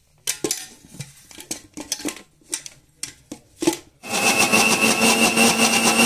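A few knocks and clicks as the steel mixer-grinder jar and its lid are handled and fitted. About four seconds in, the mixer grinder's motor starts and runs steadily with a high whine, grinding soaked rice and urad dal into idli batter.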